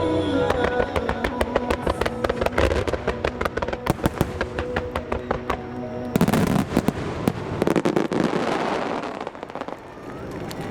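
A fireworks finale with rapid crackling and popping shell bursts over the show's music. About six seconds in, a louder, denser barrage of bursts fills the sound for a few seconds.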